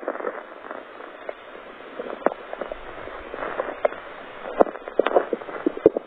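Soft crackling with scattered small pops and clicks from a bare belly being pressed and kneaded by fingertips: small stomach gurgles and skin sounds, much quieter than a full rumble.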